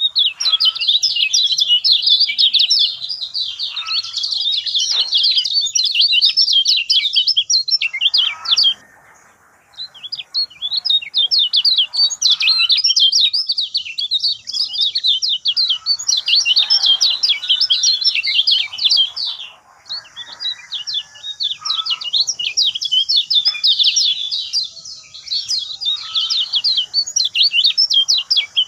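Lemon-bellied white-eye (kecial kuning) singing a loud, fast, continuous twittering song of tightly packed high chirps, in three long phrases separated by two brief pauses.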